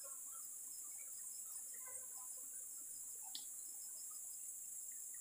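Steady high-pitched chorus of insects in tropical forest, with a few faint scattered rustles and a short click about three and a half seconds in.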